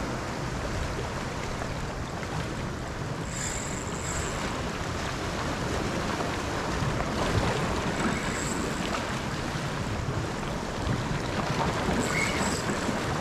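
Ocean surf washing over lava rocks, a steady rushing wash, with wind buffeting the microphone.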